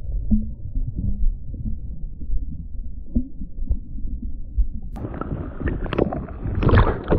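Muffled, low rumbling water movement heard through a camera held underwater in the shallows of a lake. From about five seconds in it turns louder and clearer, with sharp knocks and splashes.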